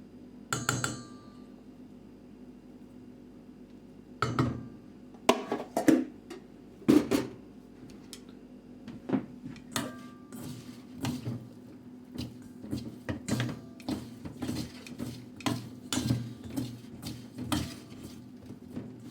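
Kitchen utensils clinking and knocking against dishes: a ringing clink about half a second in, a few sharp knocks a few seconds later, then lighter repeated taps about twice a second.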